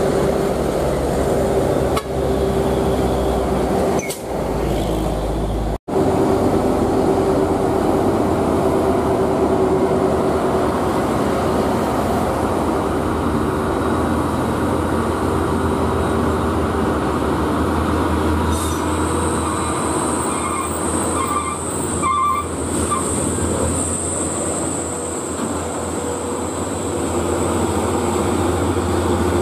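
Heavy diesel engine of a loaded UD Quester truck labouring as it crawls up a steep climb, a steady loud drone with a constant engine tone. The sound cuts out for an instant about six seconds in, then carries on.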